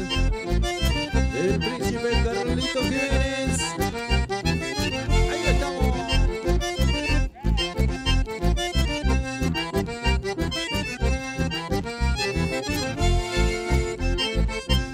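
Live band playing an instrumental passage led by accordion over a steady bass beat. The music drops out for a moment about halfway through.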